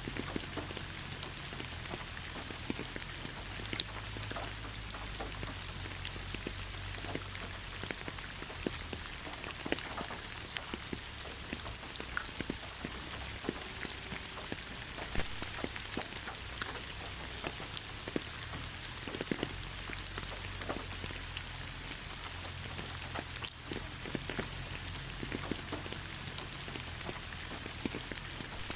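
Steady rainfall: an even hiss of rain with many separate drops ticking through it, on and on without a break.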